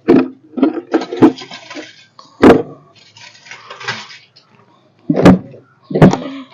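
Hard objects clattering and being scraped, like pans or feeders knocked about during cleaning: five sharp knocks with rough scraping between them.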